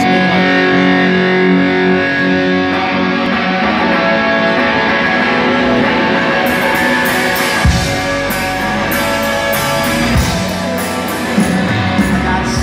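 Live rock band playing a guitar-led instrumental intro, the guitars ringing out at first, with drums and cymbals coming in about halfway through. Heard from the audience in a concert hall.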